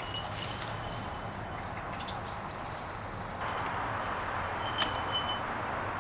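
Small metal falconry bells on a goshawk jingling on and off as the bird moves on the falconer's fist, over a steady rustling hiss of woodland air and leaf litter. The jingling comes in the second half, with a sharp clink near the end.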